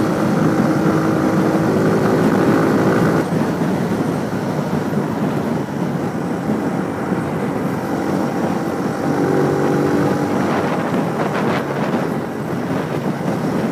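Motorcycle engine running while riding at road speed, heard from the rider's camera with wind and road noise over it. The engine note is clear for the first three seconds, fades into the noise, and comes back briefly later on.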